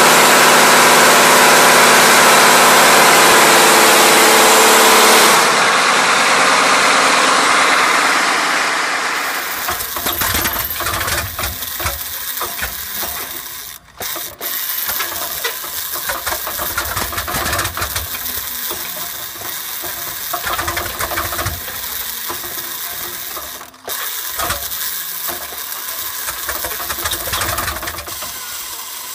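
A Russian V-12 tank engine running steadily at speed, fading out after about five seconds. It gives way to a Bristol Hercules 14-cylinder sleeve-valve radial aero-engine running unevenly with an irregular, rattling beat, cut off briefly twice.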